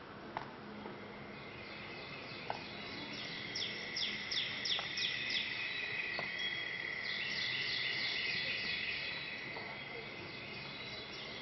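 Recorded birdsong with insect chirping, played as a stage sound effect: a steady high trill fades in, joined a few seconds later by rapid repeated falling chirps that build to their loudest past the middle.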